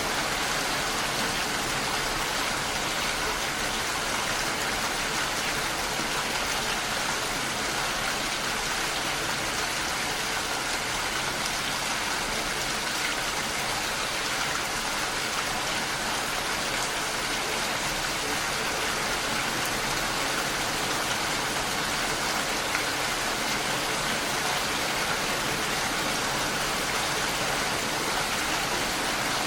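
Steady rain falling: an even, unbroken hiss of many drops, with no single drop or gust standing out.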